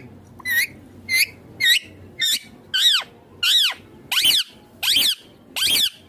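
Indian ringneck parakeet calling in a steady series of about nine high-pitched calls, one every two-thirds of a second or so, each arching up and down in pitch. The later calls run longer than the first few.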